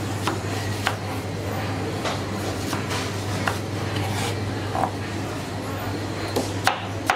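Knife striking a cutting board while produce is cut: scattered single chops, then a quick, even run of chops about two or three a second near the end, over a steady hum and faint background voices.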